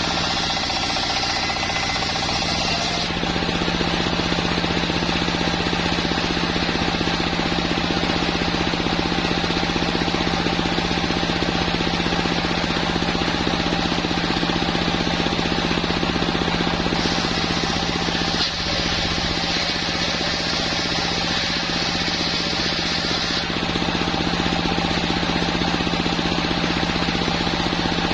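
Engine-driven sawmill running steadily with a constant machine drone. A higher hiss comes in for several seconds past the middle, with a brief dip in the sound just before.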